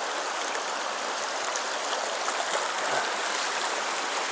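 Shallow river running over rocks in a riffle: a steady, even rush of water.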